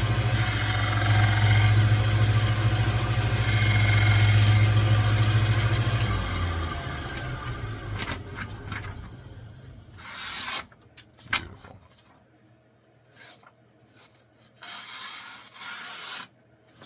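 1x30 Rikon belt sander motor running steadily while a knife blade is drawn across the belt twice, each pass a rising hiss over the hum. About six seconds in, the sander is switched off and spins down. It is followed by several short scraping strokes of a knife edge cutting paper to test sharpness.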